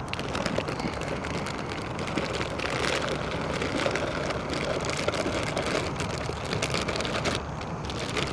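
Chopped vegetables being tipped from a bag into a billy pot of hot liquid: a dense, uneven patter of small knocks and splashes, busiest in the middle and easing off near the end.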